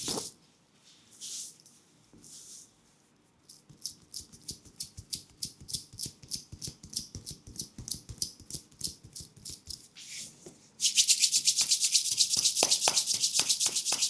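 Hands rubbing a leg in a massage: a run of quick, light swishing strokes, about four or five a second, that turns into fast, loud, continuous rubbing about eleven seconds in. A single sharp click at the very start.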